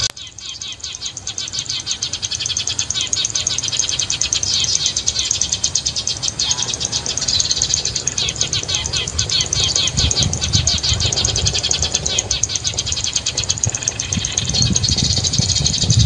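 Sparrows chirping fast and without a break, the rapid chattering chirps of burung gereja (Eurasian tree sparrows), with a low rumble joining in about ten seconds in and again near the end.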